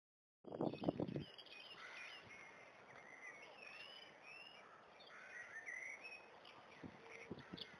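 Several small birds singing and chirping together in many short rising and falling phrases over a faint background hiss. The sound cuts in suddenly about half a second in, with a brief cluster of low thumps at its start.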